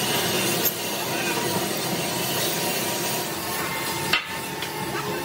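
Sledgehammer blow on a large metal wheel blank, one sharp strike about four seconds in and a lighter knock near the start, over the steady noise of workshop machinery.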